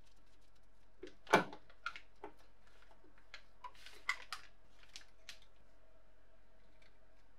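Small knocks and clicks of a screwdriver, circuit board and aluminium case being handled during reassembly, with one louder knock about a second in and a run of lighter clicks and taps after it.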